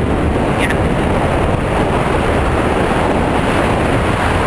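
Steady wind buffeting the microphone, with a low rumble, while riding along a paved lane.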